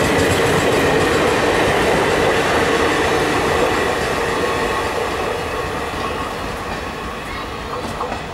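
Passenger coaches of an express train rolling past on coasting wheels, clattering over rail joints and crossovers, with a faint steady squeal from the wheels. The sound fades gradually as the train moves away.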